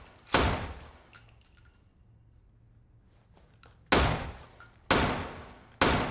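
Glock pistol firing in an indoor shooting range: one shot, then after a pause of about three and a half seconds three more shots about a second apart, each echoing off the hard walls.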